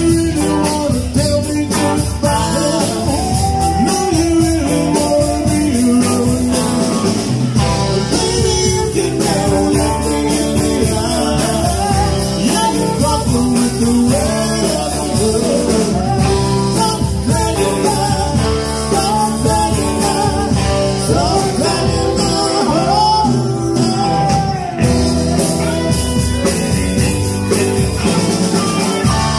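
Live rock band playing: two electric guitars, electric bass and a drum kit, with a woman singing lead.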